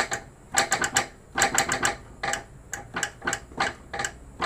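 Toyota Vios NCP42 front stabilizer bar bushes knocking in quick irregular clusters of clunks as the suspension works over a rough road: the sign that the rubber bushes have hardened or cracked.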